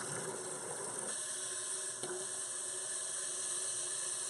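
Toilet tank fill valve running, water hissing steadily as the tank refills.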